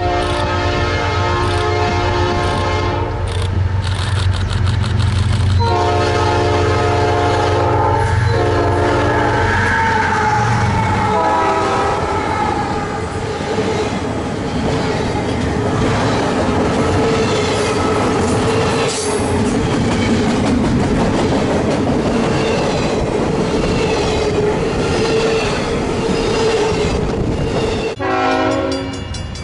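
The locomotives of a CN intermodal train, a GE ES44AC leading a GE ET44AC, sound their horn over the low rumble of their diesel engines. There is a long blast, a pause, then another long blast and a short one, and the horn tones bend downward as the engines pass at about ten seconds. The intermodal cars then roll by with a steady rumble and wheel clatter. Near the end the sound cuts to another train's horn.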